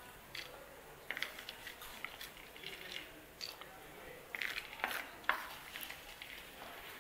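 Flat wooden spatula scraping and clicking against a terracotta cooking pan as fried cashews are scooped out of the ghee onto a clay plate: a scatter of short scrapes, the sharpest click about five seconds in.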